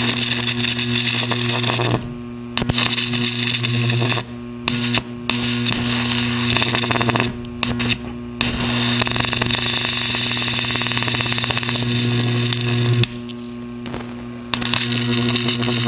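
High-voltage arc from a homemade 2.5 kV flyback transformer driven by a ZVS driver, drawn from a hand-held probe onto a metal heatsink: a steady low hum under a loud hissing buzz. The arc drops out briefly several times and restrikes. It is a hot, high-current arc that melts the metal.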